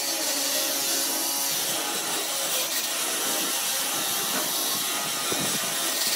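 Homemade sander, an electric motor driving an abrasive disc on a long shaft, running steadily with a continuous hiss as the disc sands the surface of a dry log.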